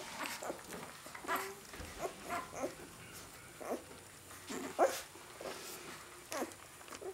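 Four-day-old Great Dane puppies squeaking: a string of short, high, thin calls every second or so, the loudest about five seconds in.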